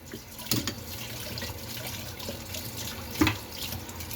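Kitchen tap running into a sink, with two sharp knocks of cookware, one about half a second in and one near the end.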